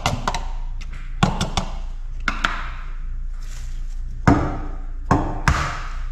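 Light clicks and knocks as plastic food containers are lifted off a plate and set down on a granite countertop, then a few sharp taps in the last couple of seconds as an egg is cracked against the plate.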